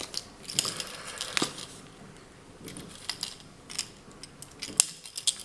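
Small metallic clicks and rustling as pliers grip and pull thick fishing line to tighten a knot on a lure's eye, with a sharper click about a second and a half in and the loudest one near the end.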